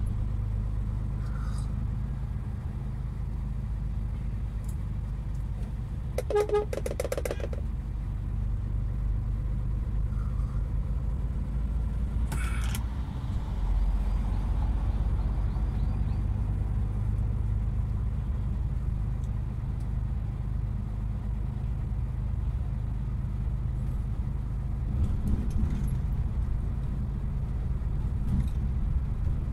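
Steady low drone of engine and road noise heard from inside a moving vehicle's cab. About six seconds in a short pitched tone sounds for about a second, and near thirteen seconds there is a brief sharper noise.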